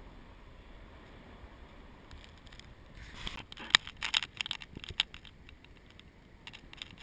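Faint steady background noise, then from about three seconds in a quick cluster of sharp clicks and knocks as the action camera is handled and turned around.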